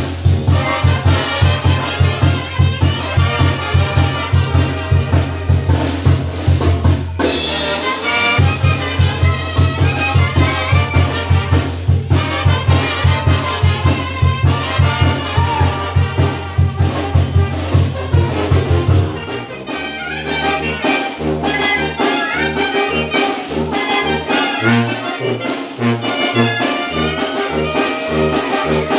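Oaxacan brass band (banda de viento) playing a chilena dance tune: trumpets and clarinet carry the melody over a tuba pumping a steady beat. About two-thirds of the way through, the tuba switches to a line of separate short notes.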